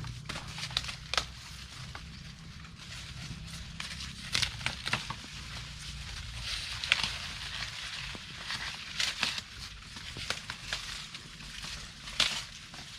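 Dry corn plants crackling and rustling as corn is picked by hand, with many irregular sharp snaps and cracks and a faint steady low rumble underneath.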